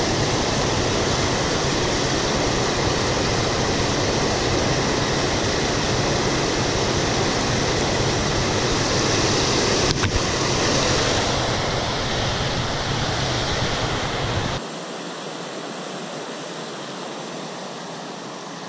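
Steady loud rushing noise with a brief splash about ten seconds in, as a bluegill is dropped back into the water. Near the end the rushing gives way to a quieter, thinner hiss.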